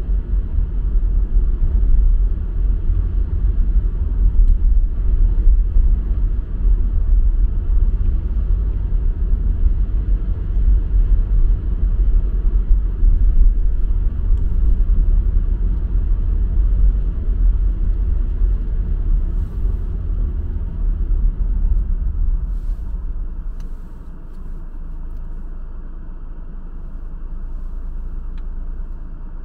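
Steady low rumble of a car driving, heard from inside the cabin; it drops to a quieter hum about three-quarters of the way through as the car slows.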